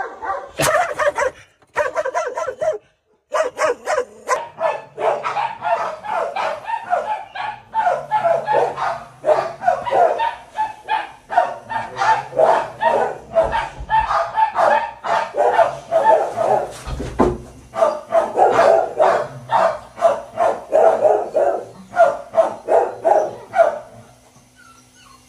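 Dog barking over and over, several barks a second with hardly a break; a short silence about two to three seconds in, and the barking stops shortly before the end.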